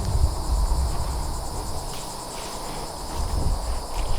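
Insects buzzing in a steady, high-pitched chorus, with a low rumble underneath.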